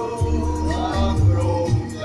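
Recorded music with a singing voice and repeated bass notes, played over loudspeakers.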